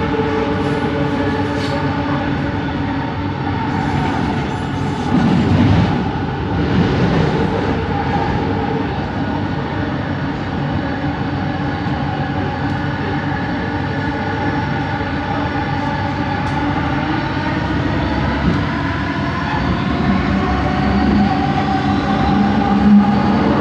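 Whine of an original Kelana Jaya Line (Bombardier ART) train's linear induction traction motor, heard from inside the carriage over the running rumble. It is several steady whining tones that climb in pitch over the last few seconds. This is the unusual motor noise of the line's original trains.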